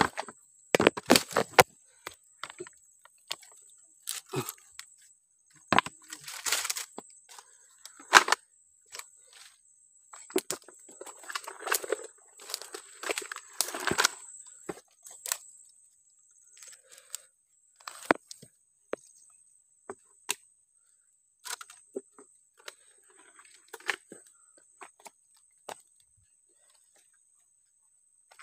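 Dry twigs and dead palm fronds cracking, snapping and rustling as they are trodden on and pushed through in mangrove mud, in irregular bursts that are busiest about halfway through and thin out later. A steady thin high tone runs underneath.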